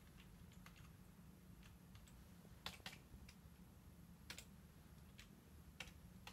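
Faint clicks of computer keyboard keys, a handful of irregularly spaced keystrokes, over a low steady hum.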